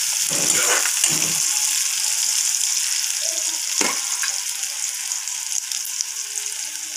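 Chopped onions sizzling steadily in hot oil in a metal kadhai, frying until they turn lightly red. A metal spoon scrapes and stirs them in the first second or so, and there is a single sharp tick about four seconds in.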